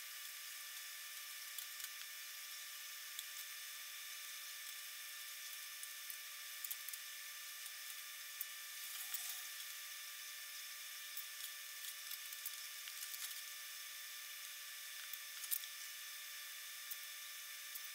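Small metal snippers cutting through the tabs that hold panels in a thin aluminum astromech skin: scattered faint clicks and snaps, one sharper snap late on, over a steady hiss.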